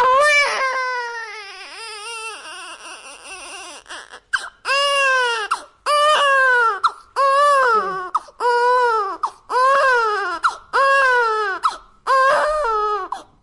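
Cartoon baby-pig character crying as a sound effect, in a high, infant-like voice. It opens with a long, wavering wail that sinks in pitch. From about four and a half seconds in come seven short wails about a second and a quarter apart, each rising and then falling.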